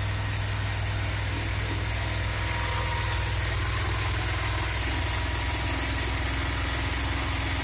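1969 Dodge A100 van's 318 V8 idling steadily while it warms up after a cold start, with a little lifter noise.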